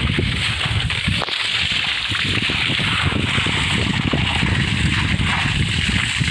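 Steady wind buffeting on the microphone with rumble from a vehicle moving over a rough, wet dirt road, full of small irregular crackles.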